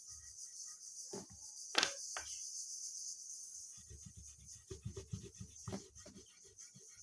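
Colouring on paper: a few sharp taps, the loudest about two seconds in, then a run of quick scratchy strokes in the second half, over a steady high hiss.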